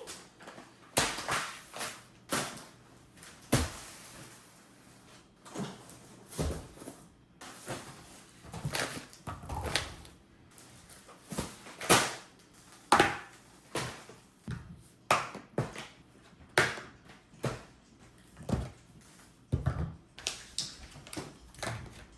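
Irregular knocks and rustles of grocery items being handled and set down on a hard surface, one or two a second.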